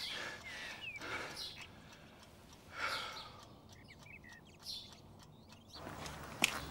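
Faint bird chirps, short rising calls now and then over a quiet background, with a sharp click just before the end.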